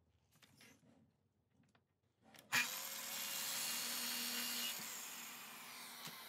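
Festool sliding miter saw started with a sharp click about two and a half seconds in, its motor running while the blade cuts through a small wooden block; near the end the motor winds down with a falling whine. A few faint handling knocks come before it.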